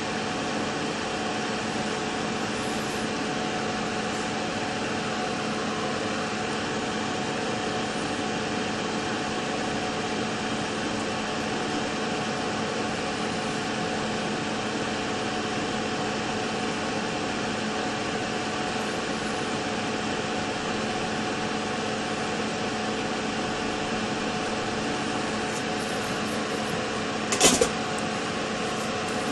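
Steady machine hum with a few constant tones under an even noise, unchanging throughout; one sharp click near the end.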